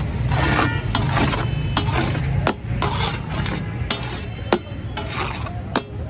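Metal spatula stirring and scraping food on a hot tawa, with sizzling and several sharp clanks of metal striking the griddle.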